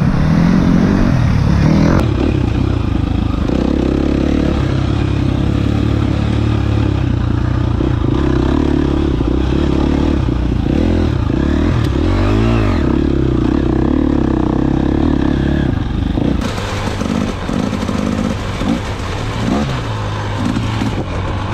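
Dirt bike engine running steadily, with short revs about twelve seconds in and again near the end.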